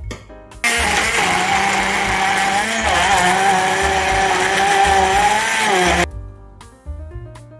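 Immersion stick blender running, puréeing pumpkin chunks in a glass measuring jug. It starts about half a second in, runs steadily for about five seconds, and cuts off suddenly near the end.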